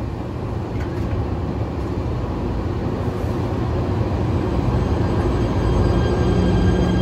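PATH PA5 subway train running, a low rumble growing steadily louder, with steady high whine tones coming in near the end.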